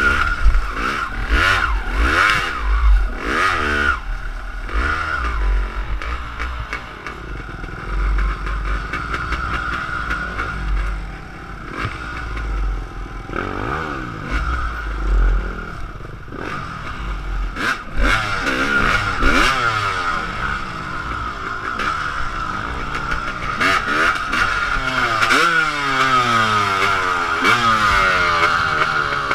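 Dirt bike engine heard from on the bike, revving up and down again and again through low-speed trail riding, with knocks and clatter as the bike goes over rough ground.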